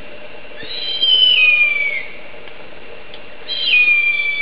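Harpy eagle calling: two long, high, whistled calls that slide down in pitch. The first comes about half a second in and lasts just over a second; the second starts near the end.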